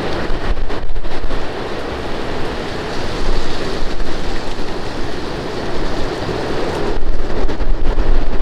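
Strong gusty wind, buffeting the microphone with a heavy low rumble that swells twice, near the start and again near the end.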